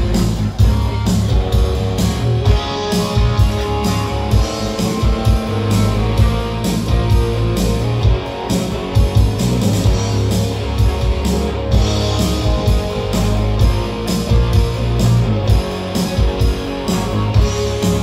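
Live rock band playing: electric guitar over a drum kit, with a steady driving beat.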